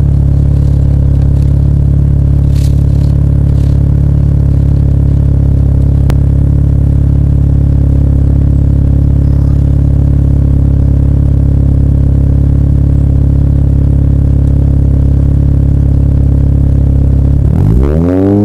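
Naturally aspirated 4G63 inline-four with a Crower cam idling steadily, heard at the tailpipes through a Megan RS muffler, test pipe and header. About a second before the end the throttle is opened and the pitch climbs as it revs.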